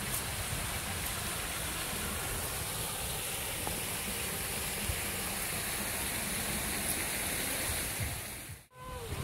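Steady rushing noise, even throughout, that cuts out briefly near the end.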